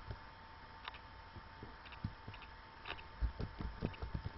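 Computer keyboard being typed on: irregular soft key clicks and knocks, over steady microphone hiss and a faint steady whine.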